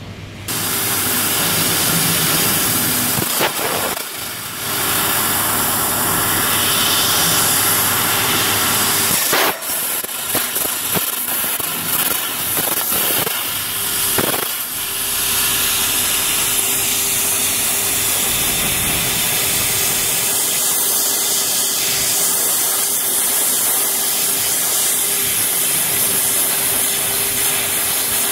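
Fiber laser cutting machine cutting sheet metal: the cutting head's gas jet gives a loud, steady hiss over a steady hum, breaking off briefly a few times.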